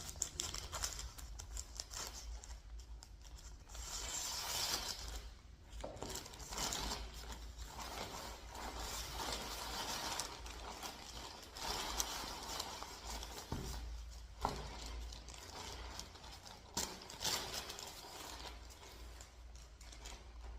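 Plastic parcel packaging being handled and opened: crinkling, tearing and scraping, with scattered clicks and taps.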